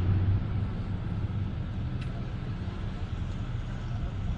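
Liebherr R 9350 mining excavator idling, a steady low rumble.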